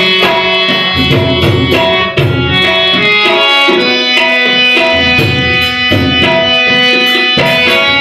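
Harmonium and tabla playing a Gujarati folk song (lokgit). The harmonium holds a steady reedy melody over a regular tabla beat.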